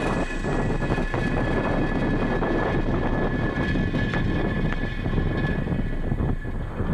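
Falcon 9 first stage's nine Merlin 1D engines running in ascent, a dense steady rumble with a thin high whine over it; stage 1 propulsion is nominal.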